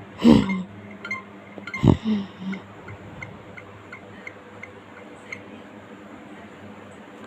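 Steady ticking, about three ticks a second, with two loud sudden sound effects near the start, each sliding down in pitch.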